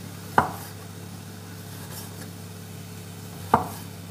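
Japanese kitchen knife slicing cherry tomatoes on a wooden cutting board: two sharp knocks of the blade striking the board, about three seconds apart, over a steady low hum.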